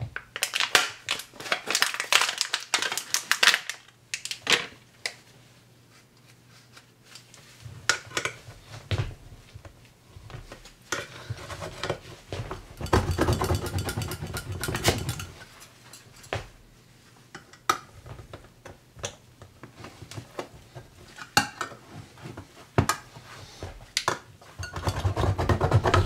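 Steel hand-held hole punch clicking and crunching as it bites into a tin can's lid, with scrapes of metal on metal and one longer stretch of scraping and crunching about halfway through. At first there is crinkling from the plastic blister pack around the punch.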